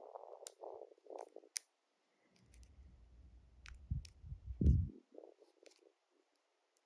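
Light metallic clicks and scraping of lock-picking tools working in the keyway of an Ultion 3-star dimple lock. There are a few dull low bumps from handling the lock about four to five seconds in.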